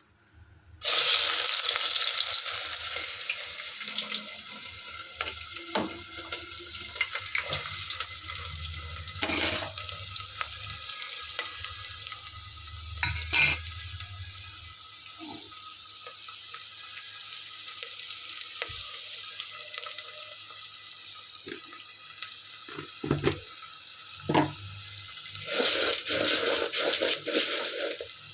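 Food sizzling in hot oil in a cooking pan: a loud hiss starts suddenly about a second in as the ingredients go in, then settles to a steady sizzle, with occasional knocks of a spoon against the pan.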